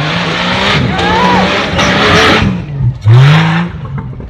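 Off-road racing buggy's engine revving hard under full throttle as it powers across loose dirt, with the noise of its tyres spinning and spraying dirt. The revs drop briefly, then rise steeply again about three seconds in.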